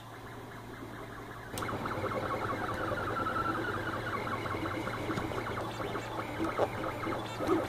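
3D printer printing a small ring: its stepper motors whir in a rapid pulsing rhythm with gliding tones as the print head traces the circles, over a steady low hum. The sound jumps louder about a second and a half in.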